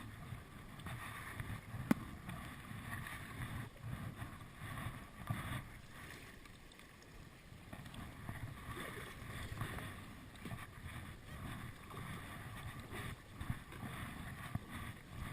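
Kayak paddle strokes splashing and water sloshing around a Hobie Outback kayak, with a sharp knock about two seconds in.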